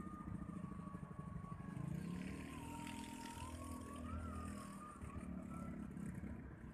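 Low rumble of a motor vehicle engine, its pitch rising and falling, with a thin wavering whine over it for the first five seconds.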